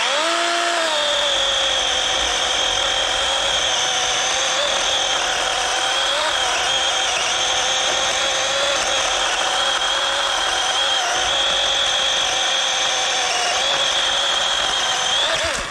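DeWalt battery-powered electric chainsaw spinning up and cutting through a down tree about six inches in diameter: a steady electric whine whose pitch wavers as the chain bites into the wood, stopping suddenly near the end.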